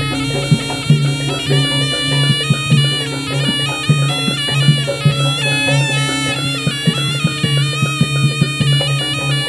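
Live jaranan music: a reedy shawm (slompret) plays a melody over frequent drum strokes and a steady low tone.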